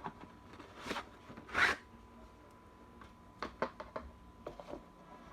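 Cardboard drone box and its packaging being opened by hand: a sliding, rubbing swish about a second and a half in, then several light clicks and taps as the contents are lifted out.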